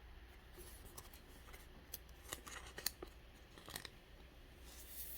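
Faint handling of trading cards: a scattering of soft clicks and rustles, spread unevenly over a few seconds.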